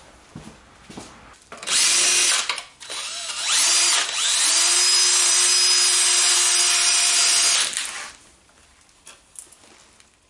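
Handheld rotary power tool with a wire wheel scouring rust off steel hub parts. It is run in a short burst, then spins up with a rising whine and grinds steadily for about four seconds before stopping.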